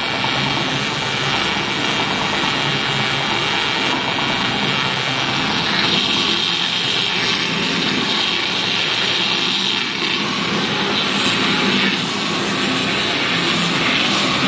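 Tyre strip cutter running while a tyre ring is fed through its cutting disc, slicing it into a continuous rubber strip: a loud, steady machine noise with no pauses.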